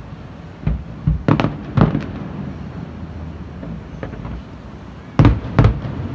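Aerial firework shells bursting: a quick run of five bangs about a second in, then the two loudest bangs near the end, with a low rumble in between.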